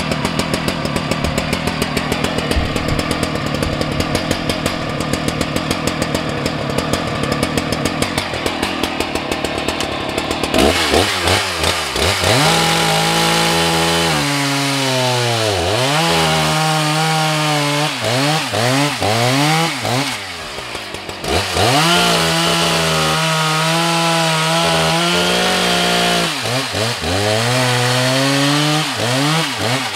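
Husqvarna 181 SE two-stroke chainsaw, its carburettor freshly rebuilt, running steadily for about ten seconds. It is then revved into very seasoned beech, its pitch sagging under load in the cut and climbing again between cuts. It drops back briefly about twenty seconds in, then cuts again.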